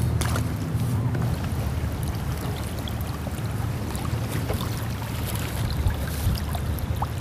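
Water lapping and trickling against a kayak hull, over a steady low rumble, with a few faint clicks.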